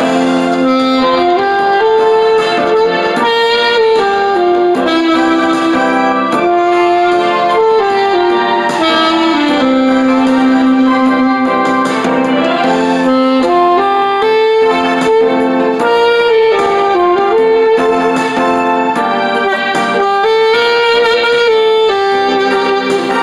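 Saxophone playing a slow, sustained melody over a keyboard backing track.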